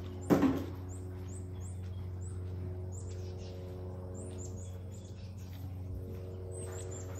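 Birds chirping with many short, high, downward-sliding notes at irregular intervals, over a steady low hum. One loud knock about a third of a second in.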